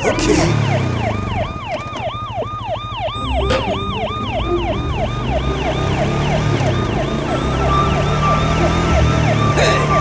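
Police siren wailing in quick rising-and-falling cycles, about three a second, over a low vehicle-engine rumble; the siren fades near the end.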